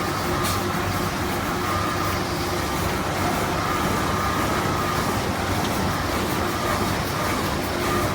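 Automatic band saw toilet paper roll cutting machine running steadily, a continuous machine noise with a faint steady whine.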